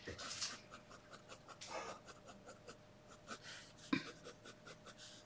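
Fine-tip ink pen hatching shadow on drawing paper: many quick, faint scratchy strokes, with a couple of soft breaths and one sharper tick about four seconds in.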